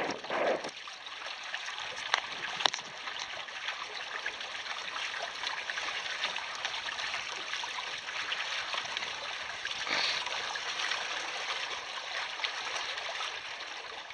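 Water rushing and splashing steadily along the hulls of a self-made double canoe under sail, with a couple of sharp clicks a few seconds in and a louder surge of spray about ten seconds in.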